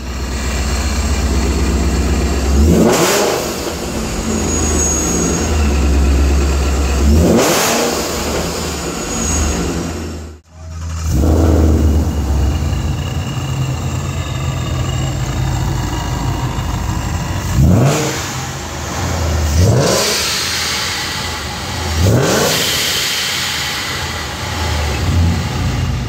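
Paxton-supercharged 2015+ Mustang V8 revved in free rev, each blip venting through the supercharger's blow-off valve as the throttle shuts: first the stock valve, then, after a short break, a Tial 50 mm blow-off valve. Two revs come before the break and three quicker ones after, over a steady idle.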